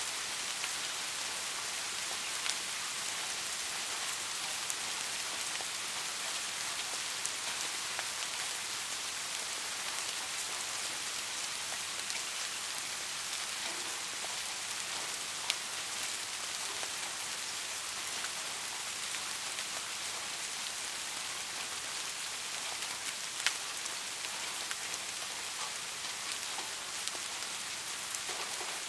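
Steady rain falling: an even hiss with scattered sharp ticks of single drops, two of them louder, a little past the middle and again later on.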